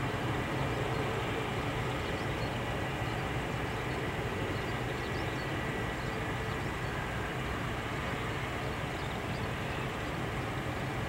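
The four Allison T56 turboprop engines of a P-3C Orion patrol aircraft running steadily, heard from afar as an even low drone with a faint steady high whine.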